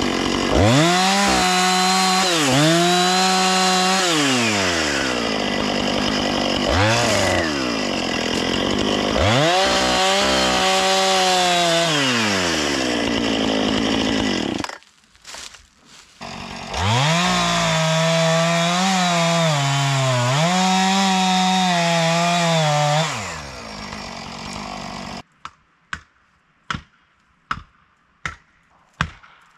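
Husqvarna chainsaw cutting into an ash trunk at full throttle in long runs, dipping briefly between them. It falls silent for about two seconds midway, cuts again, then idles down and stops. In the last few seconds come sharp, evenly spaced strikes, about one and a half a second: an axe driving a felling wedge into the cut.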